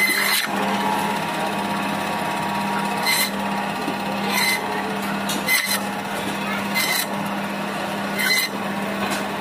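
Fish-cutting band saw running with a steady motor hum. Its blade rasps through rohu flesh and backbone in short bursts, one with each cut, roughly every second and a half from about three seconds in.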